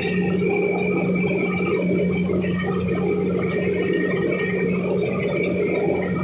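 A machine running steadily at a constant speed, with a fixed low drone and thin high whining tones above it.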